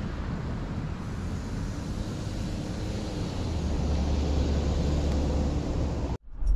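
Road and engine noise inside a moving Jeep Wrangler: a steady low drone that grows a little louder about halfway through, then cuts off abruptly near the end.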